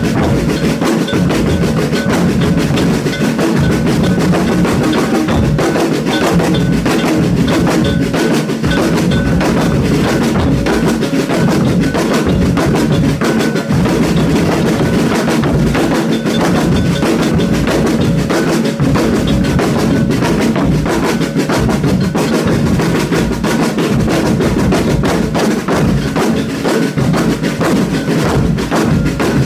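Percussion ensemble playing a steady, dense drum rhythm, many strokes without a break.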